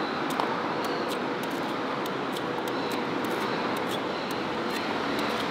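Steady hum of road traffic, with light, irregular small clicks over it.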